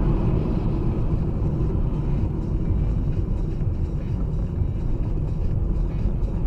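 Steady low road and engine rumble of a car driving, heard from inside the cabin.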